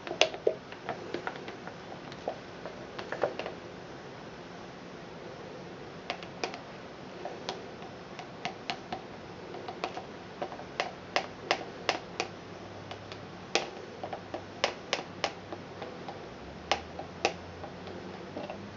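A spatula scraping and tapping against the inside of a plastic pouring cup, making a run of irregular sharp clicks and ticks, as the last of the thickening cold-process soap batter is scraped out.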